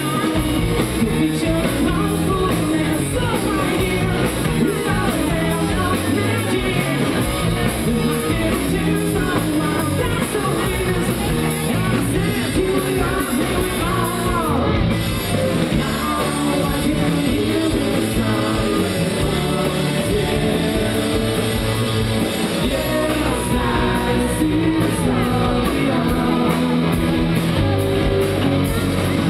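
Rock band playing live, with a singer over the band; loud and steady throughout.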